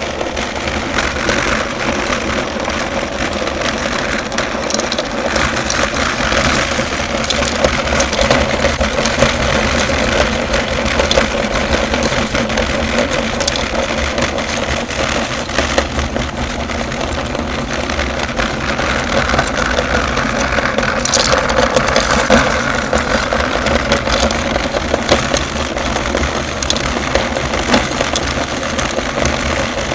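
Electric meat grinder running steadily, its motor humming, with a constant crackle of candy being crushed through it.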